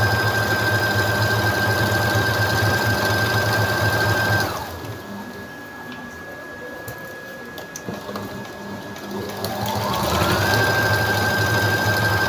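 Electric domestic sewing machine stitching at a steady speed with a constant motor whine, slowing to a stop about four seconds in. After a pause it winds back up near the end and runs at speed again.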